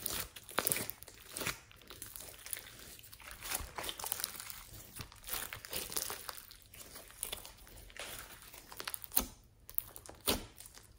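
Hands squeezing and stretching slime full of foam beads, making irregular sticky crackles and pops, with a short pause shortly after nine seconds in.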